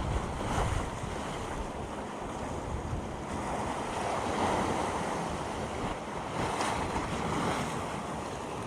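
Sea waves washing against the rocks below, swelling and easing, with wind buffeting the microphone.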